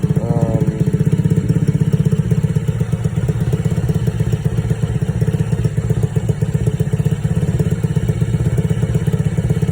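Small single-spark-plug engine idling very rough with a fast, steady pulsing beat. The owner takes its black-fouled spark plug as a sign that it is probably burning oil.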